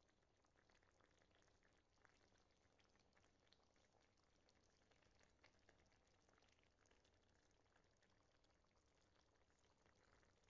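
Near silence, with faint, irregular small pops of a vegetable curry simmering in its broth.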